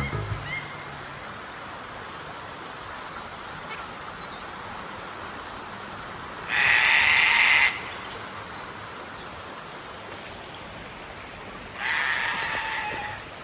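Two loud, harsh bird calls, each about a second long, one about six and a half seconds in and one near the end, over a steady forest hiss with a few faint high chirps from smaller birds.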